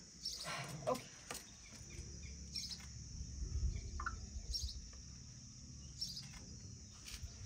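Faint outdoor ambience: a few short bird chirps over a steady, high insect drone, with a low rumble in the middle.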